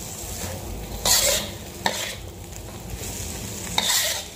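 Metal spatula scraping and tossing cabbage and mustard greens around a hot wok over a steady frying sizzle. Sharper scrapes against the pan come about a second in, near two seconds and again near the end. The greens are being stir-fried just until they wilt.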